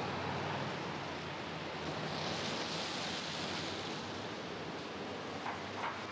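Steady street hiss of a rain-wet city street, swelling for about a second and a half a couple of seconds in, with two faint clicks near the end.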